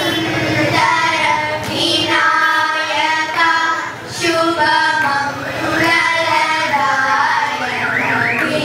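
A group of young girls singing a song together into microphones, with held notes and melodic turns.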